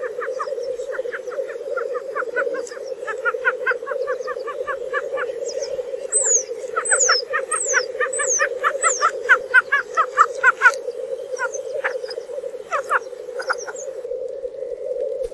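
Bird chorus: a steady low cooing hum under runs of rapid short call notes, with five quick descending whistles about six to nine seconds in.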